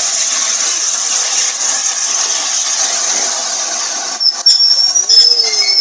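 A4 steam locomotive 60007 hissing steam steadily as it backs slowly onto its train. About four seconds in, a high, sharp squeal sets in, with a lower wavering tone under it.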